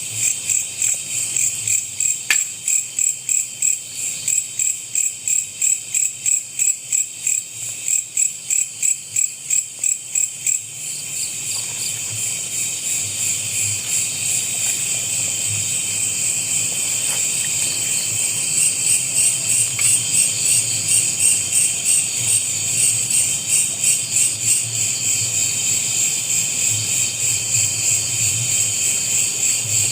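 A chorus of night insects such as crickets, trilling high and shrill. For the first ten seconds or so it pulses about twice a second, then settles into a steadier drone with quicker pulsing.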